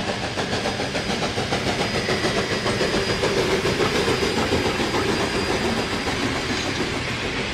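Soo Line 1003, a 2-8-2 Mikado steam locomotive, working hard as it hauls a freight train past, its exhaust chuffing in a quick, even rhythm over the rumble of the rolling cars.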